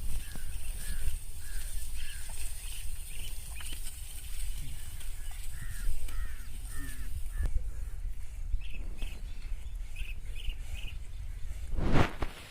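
Birds calling in quick series of short repeated notes, a few to a second, over a steady low wind rumble; a loud thump near the end.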